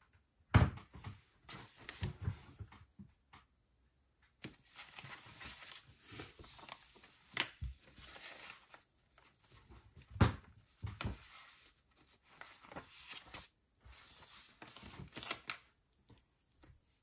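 Paper handling at a desk: sheets rustling and pages being turned in several stretches, with two sharper knocks of something set down on the desk, about half a second and ten seconds in.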